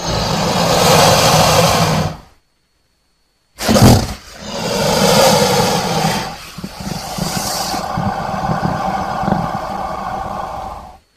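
Crocodile vocalizing in two long bouts: one lasting about two seconds, then, after a short silence, a longer one that opens with a loud burst and runs almost to the end.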